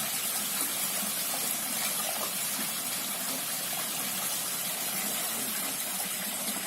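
Artificial garden-pond waterfall: water spilling down a sculpted rock-relief wall and splashing steadily into the pool.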